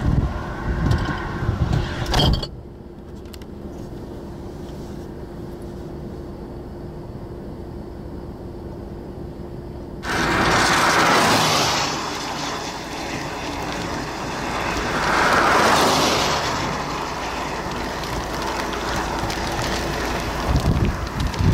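Wind gusting on the microphone at the start and again near the end. In between, two vehicles pass on a nearby road, each a broad swell that rises and fades over a couple of seconds.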